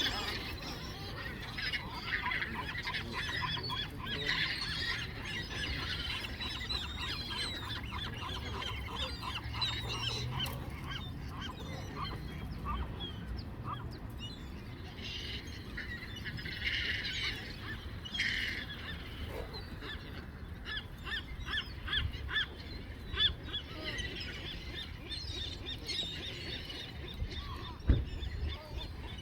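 A flock of geese honking, many short calls overlapping and repeating in quick runs, over a low background rumble.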